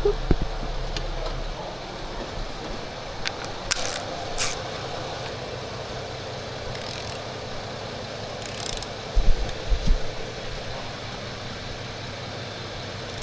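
Metal hand tools clicking and knocking on engine parts, a few sharp clicks and then a short cluster of low knocks about nine seconds in, over a steady background hum.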